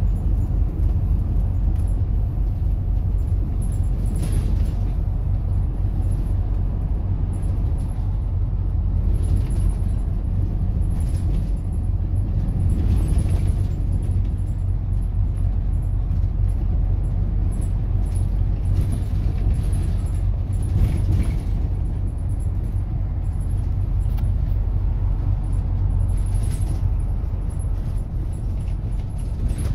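Bus on the move: a steady low rumble from the engine and road, with brief rattles now and then.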